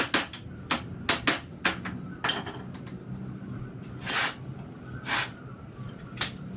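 Irregular sharp knocks and clatter of wood and metal as a wooden pallet is taken apart, with boards being knocked and pried loose. About ten separate strikes, several close together in the first two seconds, and a longer scraping noise about four seconds in.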